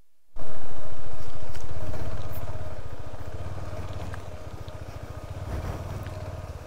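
Motorcycle engine running under way. It cuts in abruptly about half a second in after a brief dropout, is loudest at first, then slowly fades.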